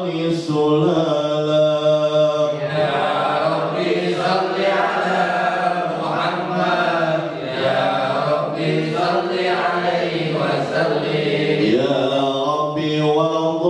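A man chanting a sholawat, an Arabic prayer of blessing on the Prophet Muhammad, into a hand microphone, in long drawn-out melismatic notes that bend and slide in pitch without a break.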